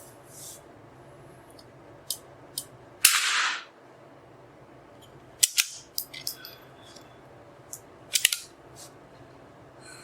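A single .22 LR shot from an Anschutz 1903 target rifle about three seconds in, with a short echo tail, followed by two clusters of sharp clicks around five and eight seconds in.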